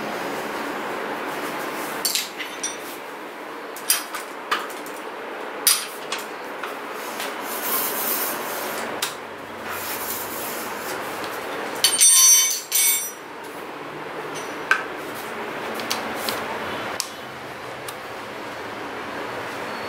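Metal tools and bicycle parts knocking and clinking as a mountain bike's front wheel and disc brake caliper are fitted with a screwdriver, over a steady background hiss. A louder, ringing metallic jangle comes about twelve seconds in.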